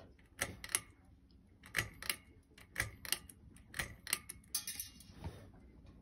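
Pull-chain switch of a Fanimation Aire Decor ceiling fan clicking as the bead chain is tugged over and over, in short pairs about once a second. No motor starts: the fan has stopped working while its light still runs.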